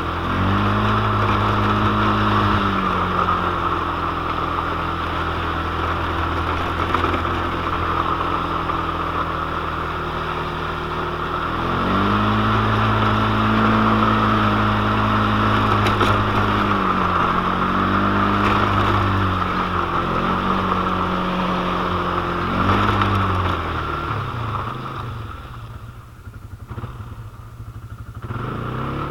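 Quad (ATV) engine running while riding, its pitch climbing and holding several times as the throttle is worked. Near the end it eases off to a quieter, lower run for a few seconds, then picks up again.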